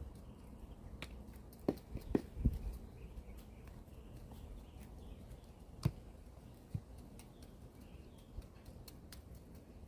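Knocks, taps and thumps of hands and tools working soil in a planter: a cluster of louder thumps about two seconds in and another near six seconds, with faint ticks between.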